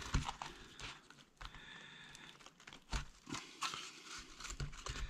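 Dry birch bark crinkling and rustling with irregular light clicks and taps, as a bark container is handled and stitched with raffia cord.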